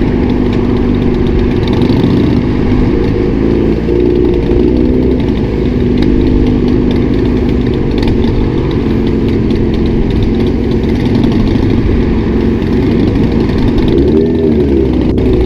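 Motorcycle with an Austin Racing aftermarket exhaust running steadily at highway speed, its engine note held over a constant rush of wind noise. Near the end the engine pitch dips and climbs again as the throttle changes.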